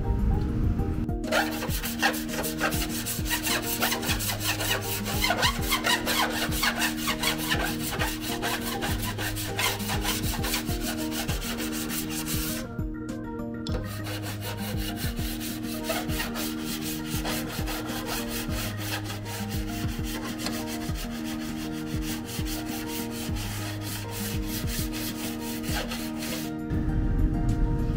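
Hand sanding of a car's steel body panel with a sanding block: quick, repeated rubbing strokes with a short pause about halfway through, over background music.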